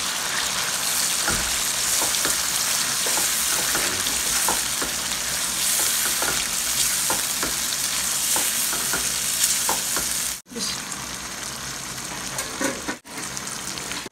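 Mutton karahi sizzling in hot oil in a karahi while yogurt and cream are stirred into it with a spatula, which scrapes and taps against the pan now and then. The sound briefly cuts out twice in the second half.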